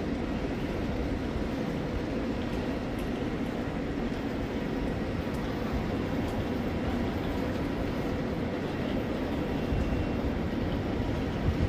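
Steady low mechanical rumble with a faint hum, unchanging throughout.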